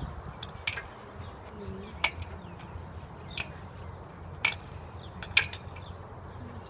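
Flagpole halyard and its clips knocking against the metal pole as the flag is lowered: about five sharp clicks at uneven intervals, the loudest about five seconds in, over a low steady rumble.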